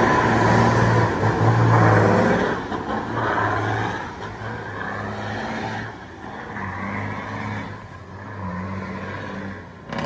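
Tractor-trailer's engine running as the truck passes close and pulls away, loud at first and then fading as it goes off down the street, its low steady note coming and going in pieces.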